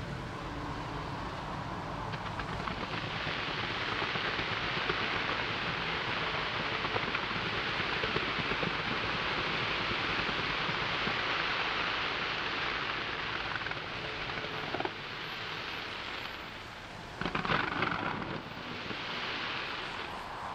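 Fireworks display heard from afar: dense, continuous crackling over a low rumble of bursts, easing off near the end, with a short louder flurry of bangs about seventeen seconds in.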